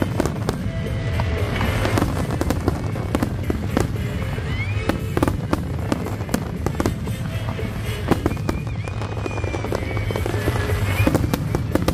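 Aerial fireworks bursting in rapid, overlapping succession with crackling, a few whistles and a continuous low rumble.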